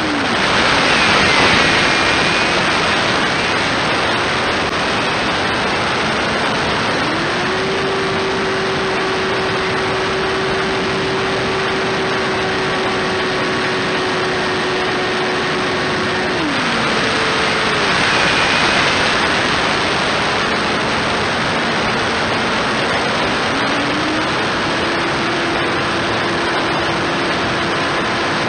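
Electric motor and propeller of a foam RC plane, heard from a camera on board: a steady hum that drops in pitch twice as the throttle is eased back and climbs again each time it is opened up. Rushing wind swells about a second in and again a little past the middle.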